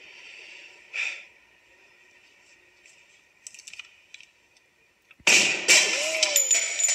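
A single pistol shot about five seconds in, sudden and loud, followed by about a second and a half of ringing, heard as film sound through a TV speaker.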